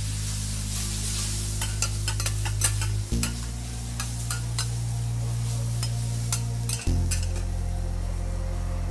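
Metal spatulas clacking and scraping on a hot teppanyaki griddle as yakisoba noodles and cabbage are tossed, over a sizzle of frying. The clacks come thick and fast and thin out in the last couple of seconds. Background music with sustained low notes, changing about every three and a half seconds, runs underneath.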